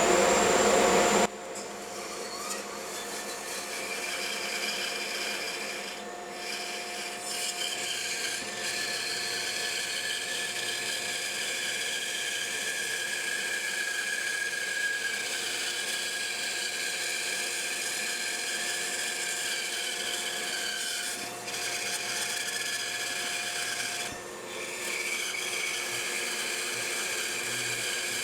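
Bandsaw running and cutting through a wood block, a steady mechanical sound with a few brief dips. A loud rush of noise fills the first second or so.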